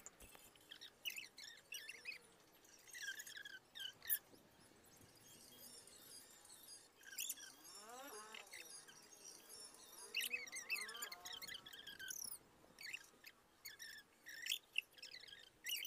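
Faint chirping of small birds, in short high irregular calls, with two longer, lower gliding calls near the middle.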